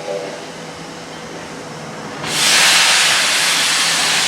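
Train at the lineside: the last instant of a multi-note horn chord, a quieter rumble, then about two seconds in a loud, steady rushing hiss that holds.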